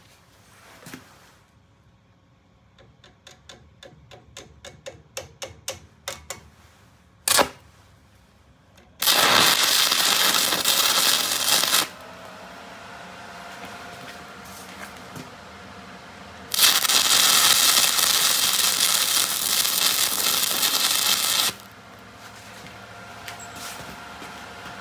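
Stick (arc) welding a steel spindle onto a steel plate: the electrode's arc crackles and hisses in two runs, about three seconds and then about five seconds long, with a faint steady hum between them. Before the first run there is a series of light taps and then a single sharp click.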